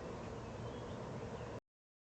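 Steady hiss with a low electrical hum from a nest webcam's microphone, cutting out to dead silence about one and a half seconds in.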